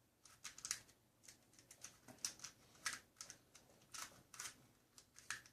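Plastic 2x2x3 puzzle cube being turned by hand: faint, irregular clicks and clacks of its layers turning.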